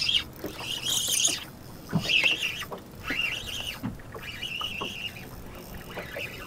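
Casting and retrieving with a rod and reel: the line whizzing out on the cast about a second in, then the reel cranked in several short spells with a high whir.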